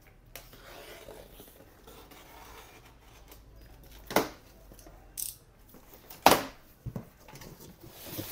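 Packing tape on a cardboard appliance box being slit with a box cutter, then the cardboard flaps pulled open, with rustling cardboard and a few sharp knocks and snaps of the flaps. The loudest knock comes a little after six seconds in.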